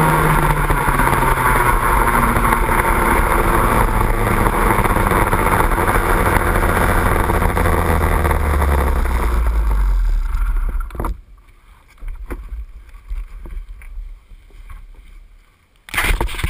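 Two-stroke kart engine running at low revs as the kart rolls slowly, its pitch sinking steadily, then cutting out about ten seconds in. After that only a few scattered knocks, and a short loud rush of noise near the end.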